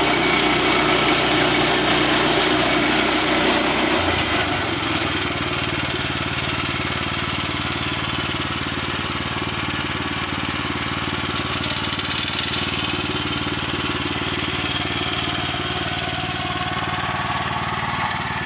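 Gasoline engine of a portable band sawmill running steadily as the mill saws a log. About four seconds in the sound gets quieter and the high hiss fades, and the engine runs on steadily with a brief swell of hiss around twelve seconds in.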